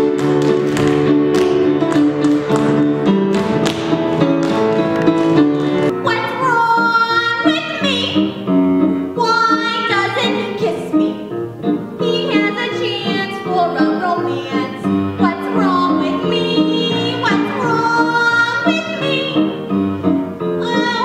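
Live theatre band music with tap-dance steps clicking on the stage floor for about the first six seconds, then a woman singing with sliding, swooping pitches over the band accompaniment.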